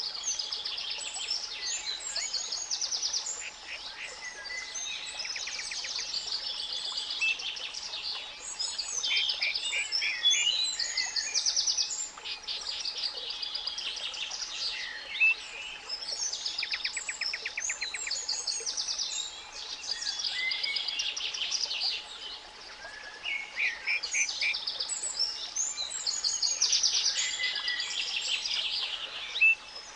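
A dense chorus of spring songbirds chirping and singing, with several rapid trills, over a steady, faint 852 Hz pure tone and a soft hiss underneath.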